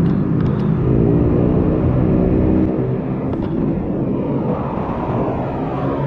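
City street traffic heard from a moving bike: a vehicle engine runs at a steady pitch for about the first three seconds, then a passing vehicle's engine note falls in pitch near the end, over a low rumble.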